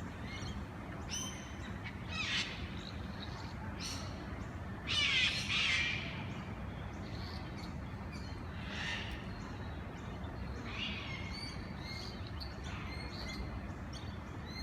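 A bird gives several harsh, raspy cawing calls a few seconds apart, the loudest about five seconds in, over a steady low outdoor rumble.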